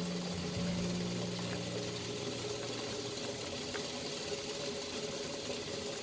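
Water at a rolling boil bubbling around a wire strainer of cockles being blanched, over a steady mechanical hum.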